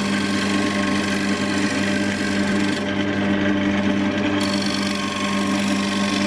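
Small wood lathe running with a steady motor hum while a hand-held turning tool cuts the edge of a spinning ash bowl blank, giving a continuous rasping as shavings come off. The cutting eases off for a moment about three seconds in, then bites again.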